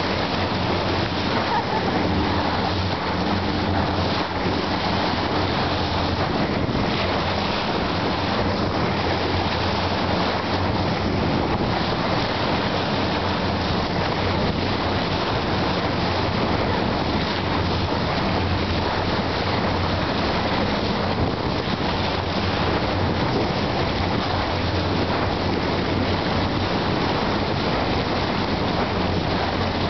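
Water rushing and splashing along the bow of a moving boat, with the boat's engine droning steadily underneath and wind noise on the microphone.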